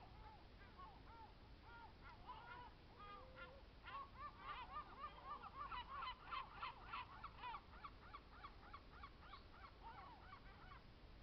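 A flock of geese honking faintly, many short calls overlapping. The calls are thickest about four to eight seconds in and thin out toward the end.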